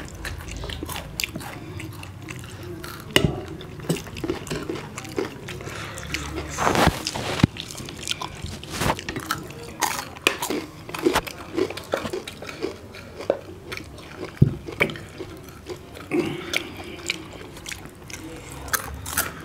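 Eating sounds of several people at a table: chewing and biting roast chicken and sel roti, with many small smacks and sharp clicks scattered through and a short louder rush about seven seconds in.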